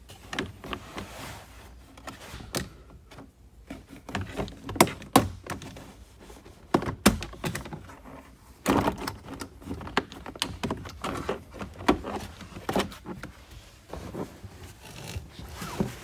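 A Volkswagen Passat's plastic B-pillar trim panel being pried and pulled loose by hand: irregular sharp clicks and knocks as its retaining tabs pop free and the panel knocks against the pillar.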